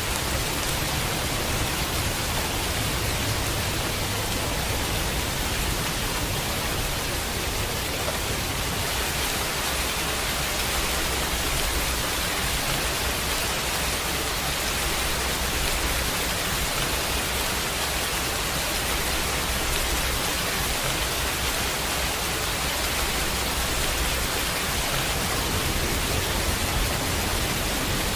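Steady heavy rain, an even hiss with a low rumble underneath that holds unchanged throughout.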